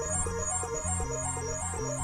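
Electronic music: a fast high repeating note pattern, about four notes a second, over low held notes that change every half second or so.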